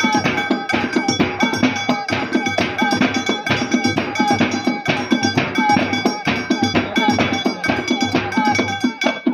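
Traditional folk percussion: metal instruments clanking in a fast, even rhythm several strokes a second, with a ringing metallic sound and a deeper regular beat underneath.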